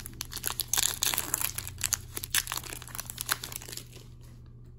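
Foil wrapper of an Upper Deck hockey card pack being torn open and crinkled by hand, a dense run of crackles that dies down near the end.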